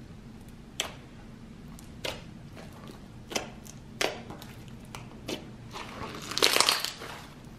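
Clear-base slime with fishbowl beads being poked and squeezed by hand: single sharp sticky pops and clicks about a second apart, then a louder run of crackling squelches a little before the end as the slime is worked between the hands.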